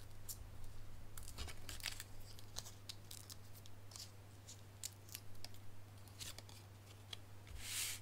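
Small foam adhesive dimensionals being peeled from their backing and pressed onto a paper sentiment strip: faint scattered paper clicks and rustles, with a longer rustle near the end as the strip is set onto the card.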